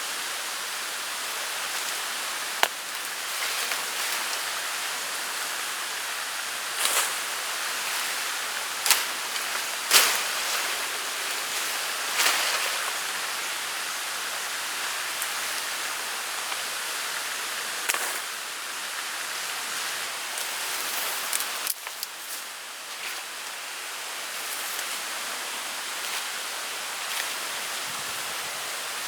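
Steady rain, an even hiss, with occasional sharp taps scattered through it.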